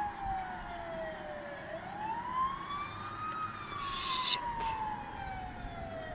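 A siren wailing slowly: its pitch falls, rises once and falls again in long glides, with a short hiss about four seconds in.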